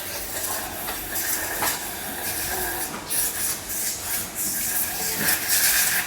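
Factory machinery running with a steady hiss, like compressed air, and a few light mechanical clicks.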